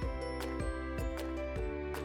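Background music: sustained instrumental tones over a steady beat of about two strikes a second.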